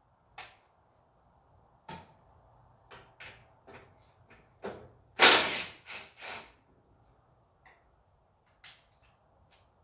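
Irregular knocks and clinks of hand tools and parts being handled during disassembly of a tractor engine, with a louder clatter lasting about half a second just past halfway and two shorter knocks right after.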